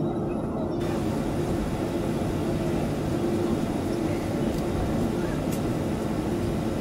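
Jet airliner's engines running at low power while taxiing, heard inside the cabin as a steady hum and rush.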